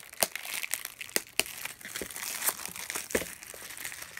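Plastic shrink wrap on a cardboard knife box crinkling and crackling in irregular sharp snaps as a hand handles and picks at it to open it.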